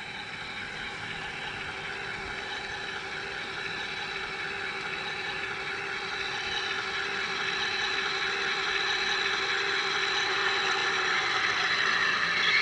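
Simulated engine sound from a Zimo sound decoder in a G-scale Bachmann Davenport model locomotive, running steadily as the locomotive moves, growing gradually louder as it approaches.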